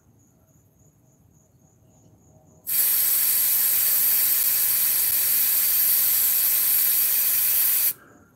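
Compressed air hissing at a tire valve for about five seconds, starting about three seconds in and cutting off sharply: a car tire being filled to its specified pressure from an air compressor.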